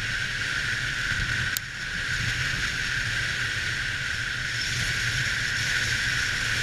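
Wind rushing over a helmet-mounted camera and longboard wheels rolling fast on asphalt during a downhill run: a steady hiss over a low rumble, with a brief click about one and a half seconds in.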